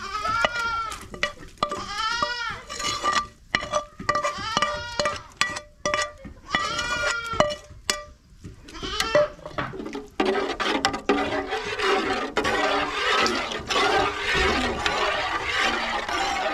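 A metal slotted spoon scraping and tapping fried herbs out of a frying pan into a pot, with a run of rising-and-falling squeals and sharp clicks. From about ten seconds in, a dense noise of the soup being stirred in the pot.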